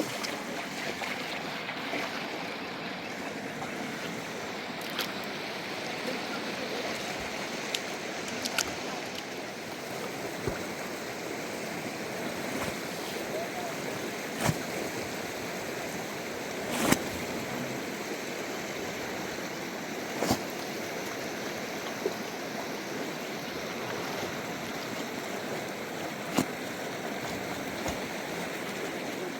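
River water rushing steadily, with a handful of short, sharp sounds over it, the loudest about seventeen seconds in.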